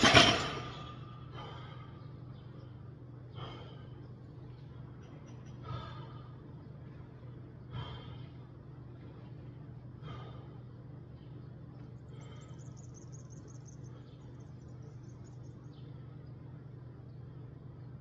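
A loud thump right at the start that dies away quickly, then a man breathing hard, a heavy breath every two seconds or so for the first ten seconds, over a steady low hum.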